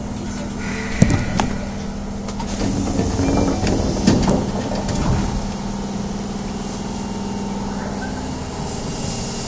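Osaka Metro 22 series subway train standing at a platform with its passenger doors opening: a sharp clunk about a second in, then a few seconds of clattering knocks. Underneath is the train's steady equipment hum.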